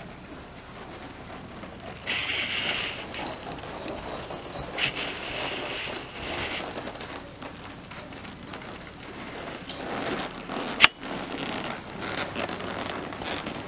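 Tennessee Walking Horse walking under a rider over soft dirt barn footing: hoofbeats in a rustling, noisy haze with scattered faint ticks. Some stretches carry a brighter hiss, and one sharp click comes about three-quarters of the way through.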